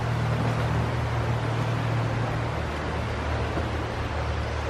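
Steady rushing of fast-flowing floodwater, with a constant low rumble under the hiss.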